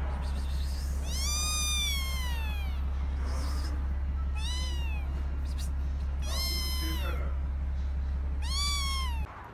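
A kitten meowing four times, high-pitched calls that rise and then fall, the first the longest. A steady low hum runs underneath and cuts off suddenly near the end.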